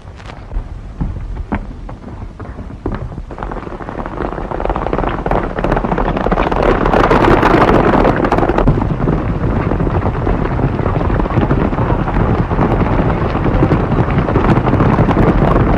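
A stampeding cattle herd: a dense rumble of many galloping hooves that builds over the first few seconds and then runs on loud.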